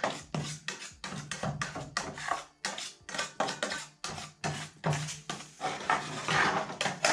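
A spatula scrapes and knocks in a plastic paint-roller tray, stirring colorant into acrylic varnish in quick repeated strokes, a few each second. Background music plays underneath.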